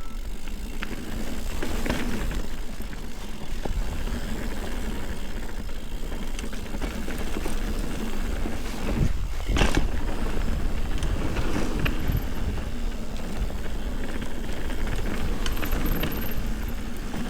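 Ibis Ripley mountain bike riding down a dirt trail: tyres rolling over dirt, with the bike rattling and wind buffeting the camera microphone, and a heavier thud about nine and a half seconds in.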